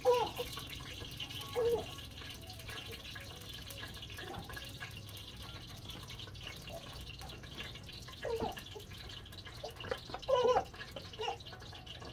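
Liquid poured from a plastic bottle into a metal cooking pot, with a few brief clinks and knocks of pots.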